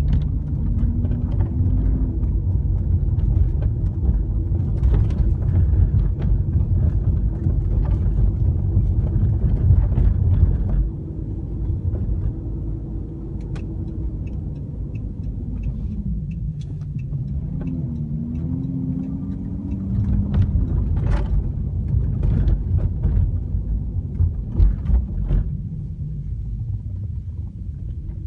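Road and engine rumble heard from inside the cabin of a 2013 Chrysler 300 on the move, louder for the first ten seconds or so, with the engine note falling and then rising again about halfway through. Scattered faint clicks and ticks sound over it.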